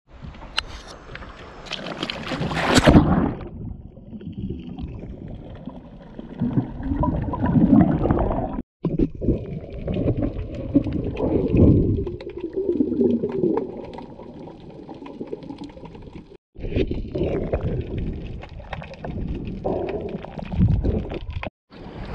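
Water splashing as a spearfisher in fins slips off a boat into the sea, loudest about three seconds in. Then comes muffled, gurgling underwater sound, broken by several abrupt cuts.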